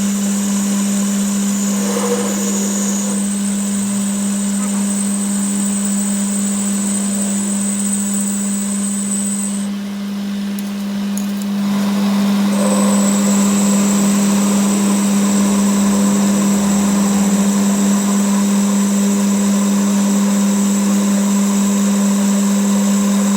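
An electric workshop machine running with a loud, steady hum, easing off briefly about ten seconds in before running steadily again.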